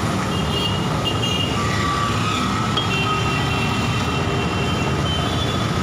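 Steady traffic and engine noise, with faint thin high whining tones coming and going over it.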